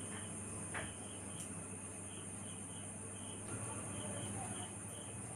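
Faint crickets chirping in a regular pulse, about two chirps a second, over a steady high-pitched insect trill and low room hum.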